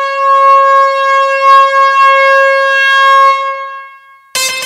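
A single long horn blast: one loud, steady, fairly high tone that holds for about three seconds and then fades away. Music with plucked strings cuts in right at the end.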